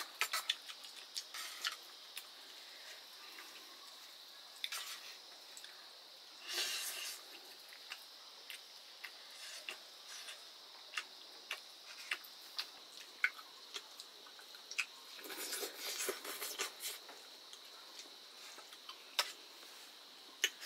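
Eating sounds of rice with greens in broth: a scatter of small wet clicks and squelches from chewing and handling the food, with two longer rustling stretches.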